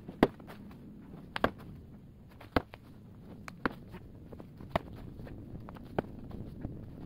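Steel shovel blade being driven into soil by hand: six sharp strikes, about one a second.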